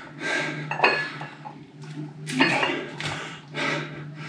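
A man breathing hard through repeated overhead dumbbell presses, with short forceful breaths every second or so over a steady low hum.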